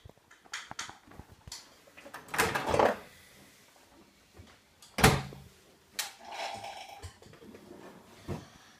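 Handling noise of a camera being drawn out of a metal stovepipe. A few light clicks come first, then a louder scraping rustle, then several separate sharp knocks against the metal.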